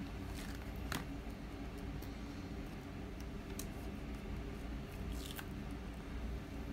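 Weeding hook picking and peeling small pieces of cut glitter heat transfer vinyl away from its clear carrier sheet: a few short, sharp scratches and crackles, about a second in and again around the middle and later, over a steady low hum.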